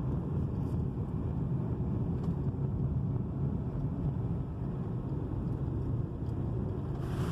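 Vehicle being driven: a steady low rumble of road and engine noise, with a brighter hiss joining near the end.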